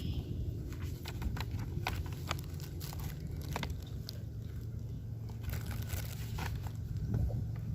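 Paper handled close to the microphone: irregular crinkling and sharp rustles as a user-guide booklet is opened and its pages turned, over a low steady rumble.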